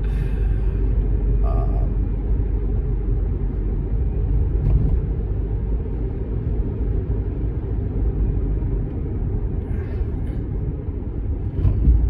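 Steady low road rumble of a moving car, heard from inside the cabin.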